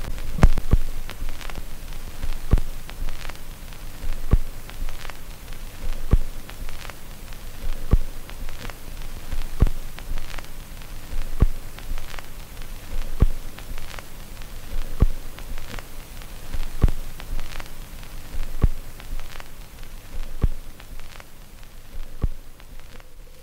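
Phonograph record surface noise: a steady hum and hiss with light crackle, and a louder click that comes back about every 1.8 seconds. That is once per turn of a 33⅓ rpm record, as a scratch in the groove passes under the needle.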